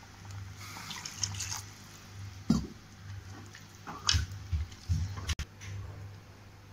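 A steel spoon stirring a watery curry gravy in a pan, freshly thinned with water: liquid sloshing, with a few sharp knocks of the spoon against the pan about two and a half seconds in and again around four to five seconds in.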